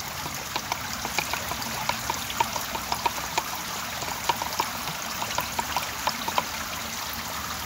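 A wooden stick stirring thick liquid in a plastic measuring jug, with irregular light clicks, several a second, as it knocks and scrapes against the jug, over a steady trickle of running water.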